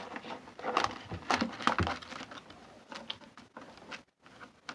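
Stickers and their paper backings being handled and sorted: light rustling with scattered short taps and clicks, busiest in the first couple of seconds and dying away near the end.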